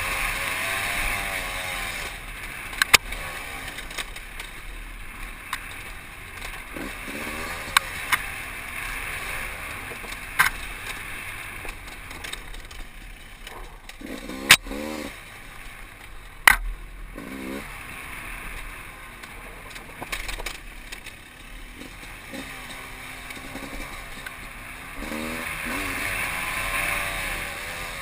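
Off-road motorcycle engine revving up and down over a steady hiss, louder near the start and again near the end, with a few sharp knocks scattered through.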